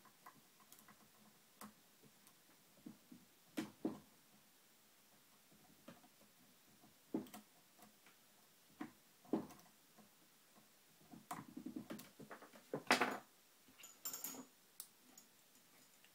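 Lock pick and tension wrench working the pins of a TrioVing oval pin-tumbler cylinder during single pin picking: scattered faint clicks and taps at irregular intervals, busiest about two-thirds of the way through.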